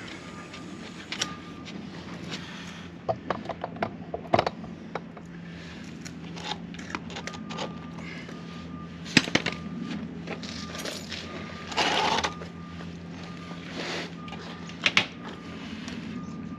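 Scattered clicks and knocks of metal door-closer hardware and tools being handled while the closer is fitted, with a cluster of quick clicks about three to four seconds in, sharp knocks about nine and fifteen seconds in, and a short rasping scrape about twelve seconds in.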